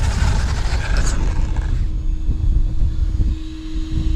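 Wind buffeting the microphone, with the high whine of an RC car's brushless electric motor falling in pitch and fading over the first second or two as the car slows. A steady tone holds on after.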